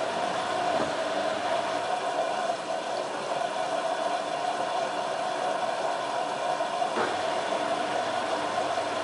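LG F1443KG front-loading washing machine running through its wash cycle: a steady motor hum with a constant tone over the noise of the turning drum. A brief click and a change in the sound come about two seconds in and again about seven seconds in.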